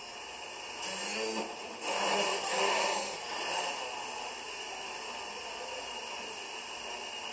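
Small quadcopter's propellers whirring in flight, a little louder for the first few seconds and then steady, heard played back through a TV's speaker.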